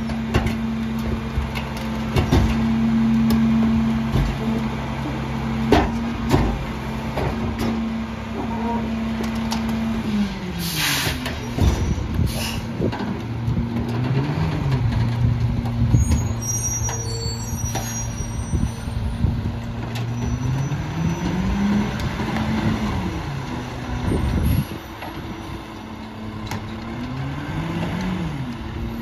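Mack LEU garbage truck engine held at a raised, steady speed while the McNeilus rear loader's packer cycles, with knocks and clanks from the hopper. About ten seconds in the engine drops back to idle and short air hisses follow. It then revs up and down several times as the truck moves off.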